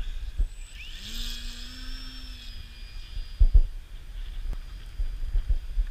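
Electric motor of a ParkZone Sport Cub RC plane spinning up with a rising whine, then holding a steady high whine before fading. Low thumps of wind buffeting the microphone follow.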